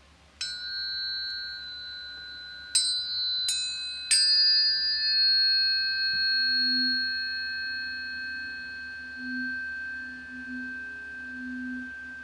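Planetary tuning forks struck four times in quick succession over the first four seconds, each strike adding a clear pure tone that rings on and slowly fades. A lower tone wavers in about halfway through.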